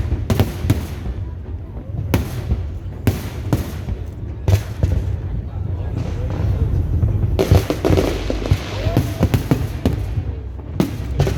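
Aerial fireworks display: a run of sharp bangs at irregular intervals, some in quick pairs, over a steady low rumble.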